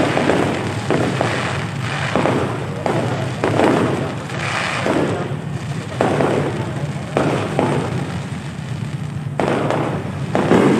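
Fireworks display: aerial shells bursting one after another with booms and crackle, a burst every half second to a second or so, over a steady low rumble.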